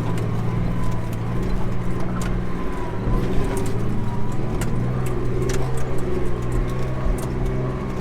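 Truck engine running steadily under load, with a thin whine over it and scattered light clicks, as the truck drives through soft mud.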